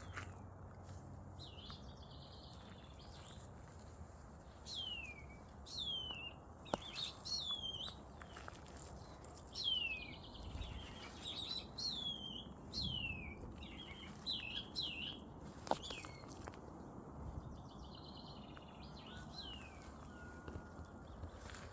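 Birds calling: many short whistled notes, each sliding down in pitch, come in quick runs over a low steady outdoor hiss. Two sharp clicks stand out, one about a third of the way in and one near three quarters.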